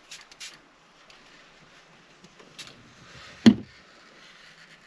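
A couple of short squirts from a hand spray bottle at the start, then a single sharp knock about three and a half seconds in.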